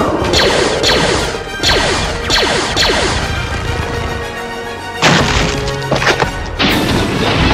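Action-film battle soundtrack: music under a rapid series of crashing impacts, each trailed by a falling pitch sweep. Two heavier crashes follow, about five seconds in and again a second and a half later.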